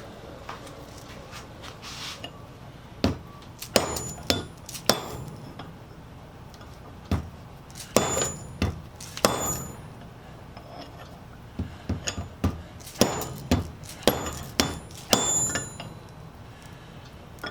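Steel hand tools clinking and tapping against metal: about fifteen sharp clicks, some with a brief high ring, in clusters with quiet pauses between.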